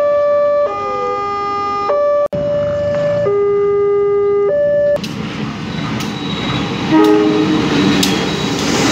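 Electronic railway level-crossing alarm sounding two tones that switch back and forth about every second, cut off briefly about two seconds in. About five seconds in it gives way to a diesel-hauled train passing close by: a rumble with wheel clicks about once a second, and a short horn-like blast about seven seconds in, the loudest moment.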